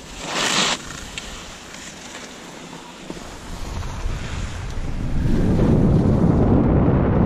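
Skis hissing and scraping over chopped-up snow as a skier sets off downhill, with a short sharp hiss right at the start. From about five seconds in, wind on the microphone rises into a steady rushing as speed builds.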